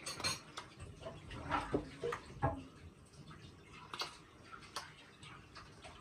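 Light, irregular taps and clicks of small fingers patting and picking at pieces of grape on a plastic high-chair tray.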